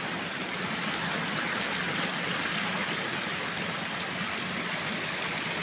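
Steady rush of flowing water, an even noise with no breaks.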